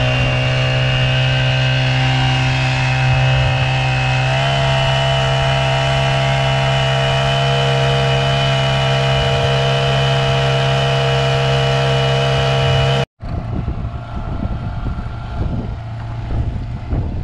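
Honda GX50 four-stroke, air-cooled outboard motor running steadily under way, its pitch stepping up slightly about four seconds in. Near the end the engine sound breaks off abruptly, and quieter wind and water noise follows.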